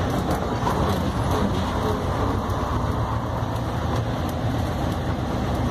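Gardner 5LW five-cylinder diesel engine of a 1949 Bristol K5G double-decker bus running steadily while the bus is under way, heard from on board.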